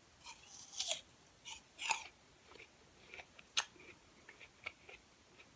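A fresh apple slice being bitten and chewed: a run of crisp, wet crunches, strongest in the first two seconds, then lighter chewing.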